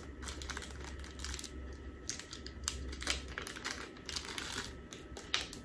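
Small clear plastic jewelry bag handled and opened by hand: faint crinkling with many small irregular clicks.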